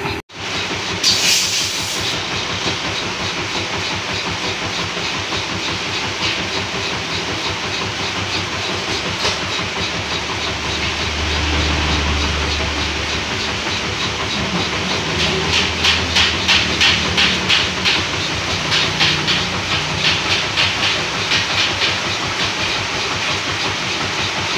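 Steady hiss of heavy rain, with a car passing on the wet road about eleven seconds in as a low swelling rumble. From about fifteen to twenty seconds a fast ticking patter rises over the hiss.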